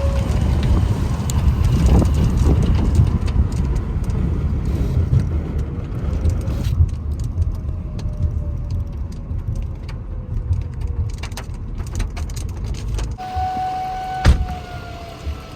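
Outdoor tornado warning sirens sounding faintly, their tone drifting slowly in pitch and falling away near the end, under a heavy low rumble. A sharp knock about fourteen seconds in.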